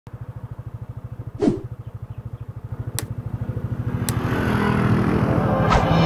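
Motorcycle engine running at a steady idle, a rapid even putter of about twelve beats a second that grows gradually louder. A short, sharp sound stands out about a second and a half in.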